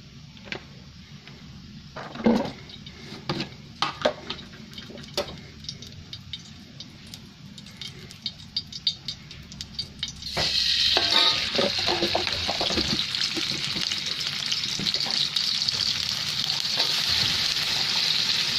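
Hot cooking oil in a wok with scattered small ticks and knocks, then, about ten seconds in, chilli paste hits the oil and it breaks into a loud, steady sizzle of frying.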